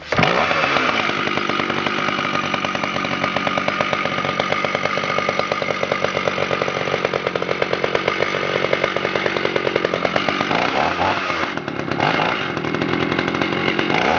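Echo CS-550 EVL two-stroke chainsaw bursting into life and running steadily, revved up and down a couple of times about ten seconds in.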